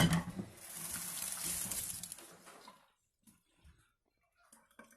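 A sharp knock, then water running for about two seconds before it stops, followed by a few faint clicks.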